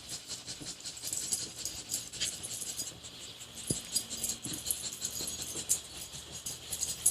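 A pet dog making a dense run of light, rapid clicking and rattling sounds, with one brief low sound about halfway through.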